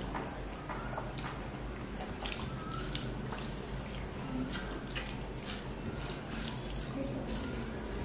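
Wet, clicky eating sounds, many short squelches and smacks: fingers mixing rice with fish curry on a steel plate, and chewing. A steady low hum lies underneath.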